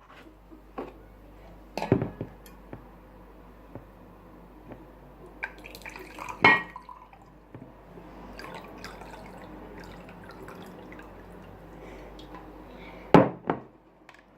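Water poured from a bottle into a drinking glass and drunk. Four sharp knocks as the glass is handled and set down.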